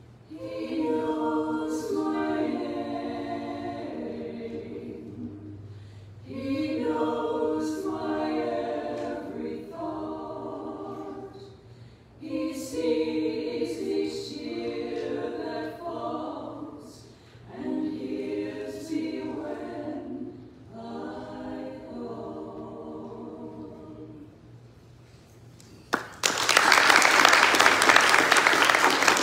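Two women singing a duet in phrases with short breaths between them. Near the end the singing stops and the audience breaks into applause, louder than the singing.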